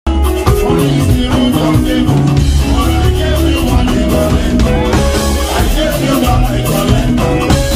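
Live Afropop band music with a singer on vocals over drums, bass and guitar, loud and steady.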